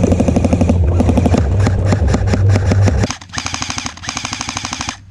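Airsoft electric guns firing full-auto: a rapid, even mechanical rattle of shots for about three seconds, then a second, lighter and higher-pitched burst that runs until near the end.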